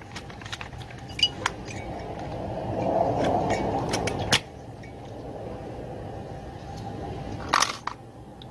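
Small clicks and clinks of plastic and metal parts being handled as a chainsaw carburetor and its fuel lines are worked loose, over a steady low background rumble. A louder patch of noise runs from about three seconds in and cuts off sharply, and a sharper clink comes near the end.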